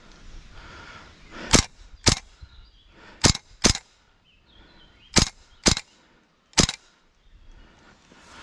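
Airsoft gun firing seven single shots, mostly in quick pairs about half a second apart, with a last lone shot near the end.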